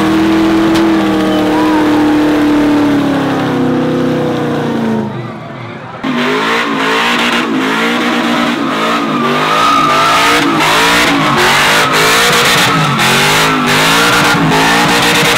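Pickup truck engines during burnouts. First a steady high-revving engine tone that sags and drops about five seconds in. Then, after a cut, a second truck's engine revving up and down over and over, about once a second, its rear tyres spinning.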